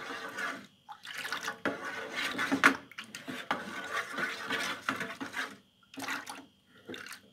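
Wooden spoon stirring a thin ice-cream mixture in an aluminium pot, the liquid swishing in uneven strokes with short breaks.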